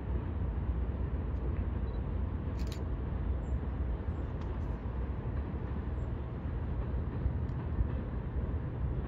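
Freight train rolling across a bridge in a steady low rumble of cars on the rails, with one brief sharp click about two and a half seconds in.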